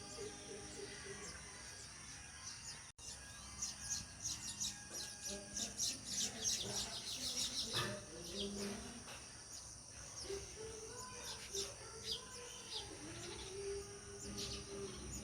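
House sparrows chirping: a dense run of quick chirps from a few seconds in until about halfway, then scattered chirps. The sound cuts out for a moment just before the dense run.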